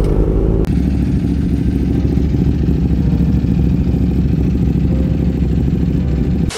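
Several sport motorcycles idling together: a dense, steady, loud engine rumble from a group of superbikes.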